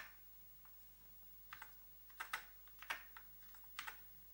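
Keys on a Commodore SX-64's detachable keyboard pressed one at a time: about five faint clicks spread over the few seconds.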